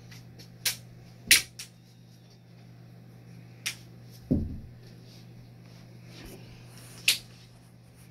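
PVC pipes clacking against each other as they are handled and laid down: about half a dozen sharp knocks with a duller thud a little past the middle. A steady low hum runs underneath.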